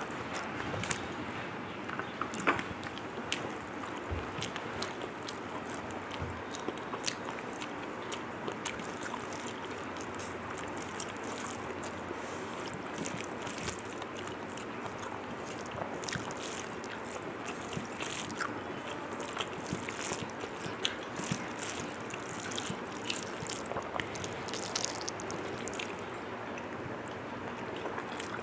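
Close-up eating sounds of a person chewing mouthfuls of rice and curry, with many small sharp clicks and smacks over a steady background noise.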